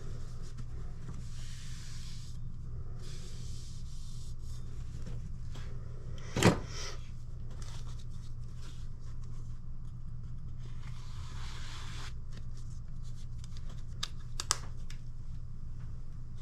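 Kitchen knife blade scraped across a whetstone in a few separate strokes, over a steady low hum. A single sharp knock comes a little before halfway, and two clicks near the end.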